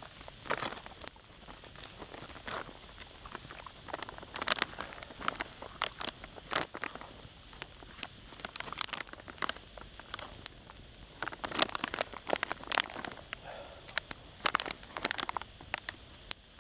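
Plastic jerky bag crinkling in irregular bursts as a hand digs into it, over the light pops of a small wood campfire.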